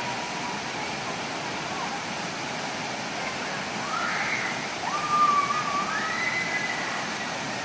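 Waterfall running steadily: a continuous rush of falling water.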